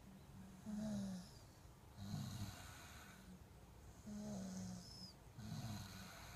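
A sleeper snoring softly: four snores in even breaths about a second and a half apart, a couple of them with a short, faint high whistle.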